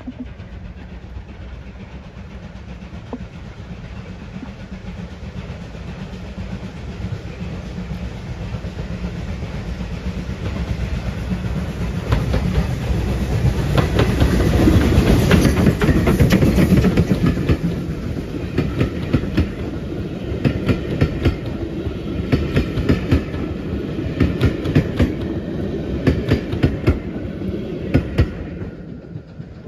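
Steam-hauled passenger train passing close by. Its running noise builds to a peak about halfway through. The wheels then click rhythmically over the rail joints as the coaches go by, and the sound falls away suddenly near the end.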